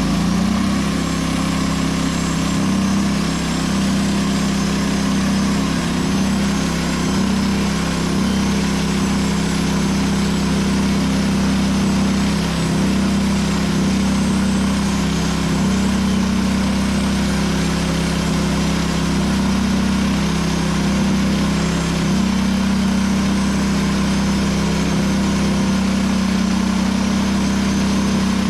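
Norwood portable band sawmill running steadily at a constant pitch as its band blade cuts a board from a squared ash log.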